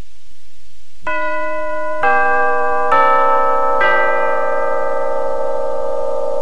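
School bell chime, starting about a second in with four sustained notes struck about a second apart, each ringing on beneath the next. It signals the end of class.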